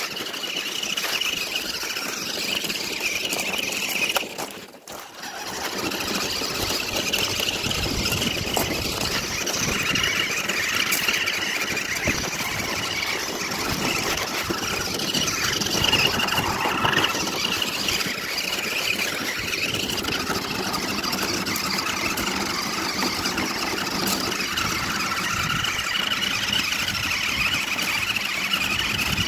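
Toy RC monster truck's electric motor and gears whining steadily as it drives on gravel, cutting out briefly about four to five seconds in.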